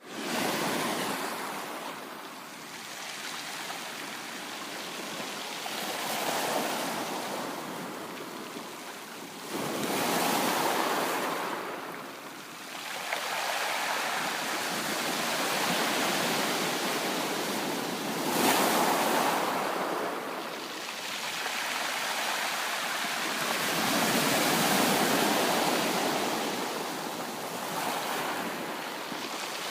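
Ocean waves breaking and washing on a shore, swelling and easing in slow surges every few seconds, with a sharper break about ten seconds in and another near the middle.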